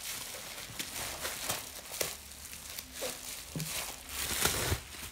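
Plastic bubble-wrap mailer crinkling and rustling in irregular crackles as a boxed diary is pulled out of it by hand.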